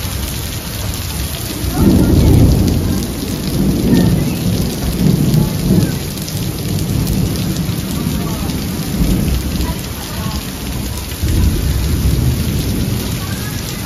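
Thunderstorm downpour: heavy rain falling steadily, with low rumbling surges about two seconds in and again about eleven seconds in.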